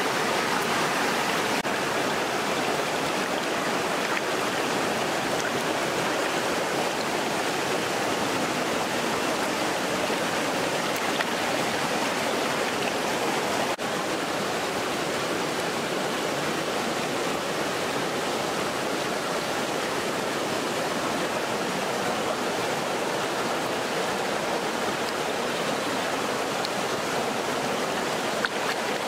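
Shallow stream water rushing steadily over rock.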